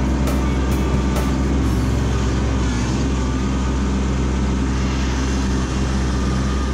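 Kubota B2601 compact tractor's three-cylinder diesel engine running steadily as the tractor drives along a forest trail.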